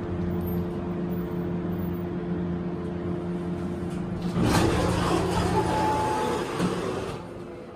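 Steady hum inside a Montgomery hydraulic elevator car. About four seconds in, the car doors slide open with a rough, noisy run and a short high squeal, lasting about three seconds. The doors sound unhealthy.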